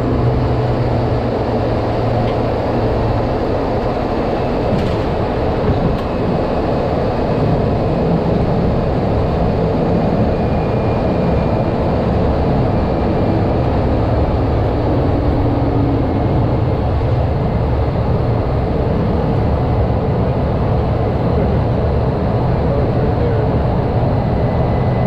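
Steady drone of a Cessna 208 Grand Caravan's single PT6A turboprop engine and propeller, mixed with airflow noise, heard inside the cockpit on final approach.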